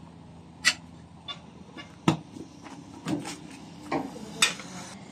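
Steel tyre levers clinking and scraping against a small motorbike wheel's rim as the tyre is levered over it, with about five sharp irregular metal knocks.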